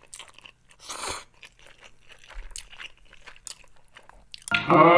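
Close-miked mouth sounds of someone eating spicy instant noodles: chewing with many small wet clicks, and one louder slurp about a second in. Music and a voice come in near the end.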